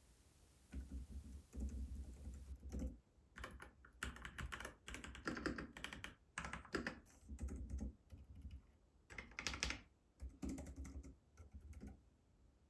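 Typing on a Keychron K10 Pro full-size mechanical keyboard: runs of crisp key clicks with short pauses between them, stopping shortly before the end.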